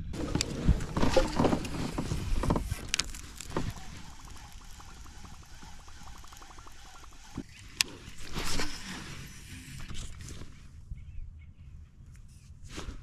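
Water sloshing and splashing around a fishing kayak, with scattered knocks and handling noise from the boat and gear, loudest in the first few seconds. A faint fast ticking runs through the middle.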